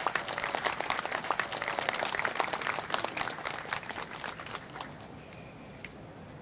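A small crowd clapping, many separate hand claps that thin out and die away about four and a half seconds in.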